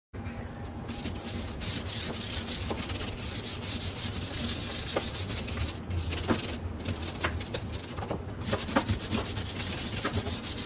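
Hand scrubbing of a kitchen surface: continuous scratchy back-and-forth rubbing with a couple of brief pauses and scattered small clicks.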